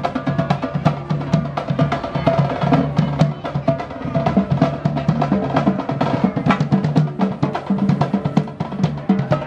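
Music with a busy drum-kit beat and held instrumental notes.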